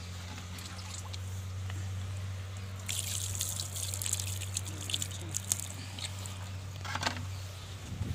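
Water poured from a plastic jug over hands rinsing raw chicken pieces, splashing and dripping onto palm fronds. The splashing starts about three seconds in and lasts a couple of seconds, with one more short splash near the end, over a steady low hum.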